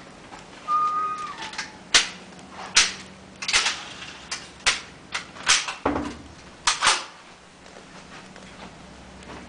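A run of sharp clicks and knocks at uneven intervals, about ten in all, with a brief high tone just before them and a faint steady hum underneath.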